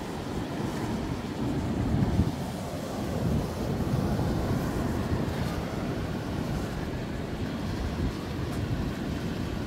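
Wind buffeting the microphone in gusts, over the wash of surf breaking on the rocks, with a stronger gust about two seconds in.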